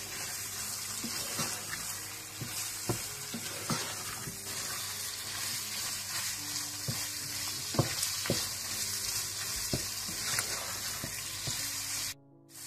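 Chicken pieces sizzling in tomato purée and butter in a nonstick pan while a spatula stirs and scrapes them, with scattered light knocks of the spatula against the pan. The sound drops out for a moment near the end.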